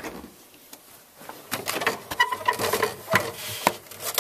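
Refrigerator freezer opened and a hand rummaging inside. There is a click at the start, then a run of clicks, knocks and short squeaks from about a second and a half in.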